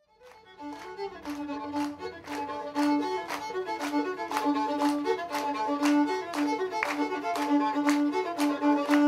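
A fiddle playing a fast tune with a steady beat, fading in at the start.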